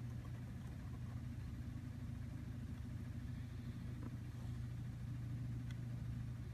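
Steady low hum of a running appliance or fan, with a few faint scratches of a felt-tip marker drawing on a card.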